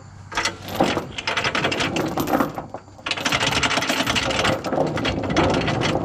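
Steel tie-down chain rattling as it is pulled and dragged across a wooden trailer deck: a rapid clatter of links in two long runs, with a short break about three seconds in.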